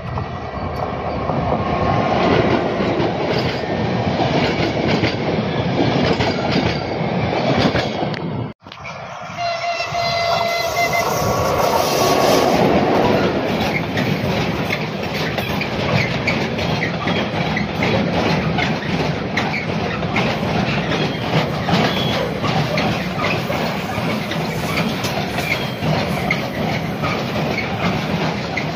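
Electric-hauled passenger train running past loudly. The sound breaks off for an instant, and then a long freight train of container wagons rolls past close by, its wheels clattering steadily over the rail joints. A brief pitched tone sounds about ten seconds in.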